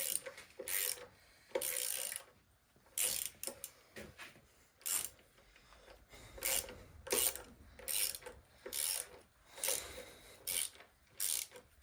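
Hand ratchet turning bolts down: about a dozen short bursts of clicks, one for each stroke of the handle, irregularly spaced.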